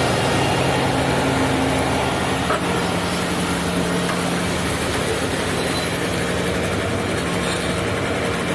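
Heavy engine of a concrete road paving machine running steadily, an even low drone with no change in pace.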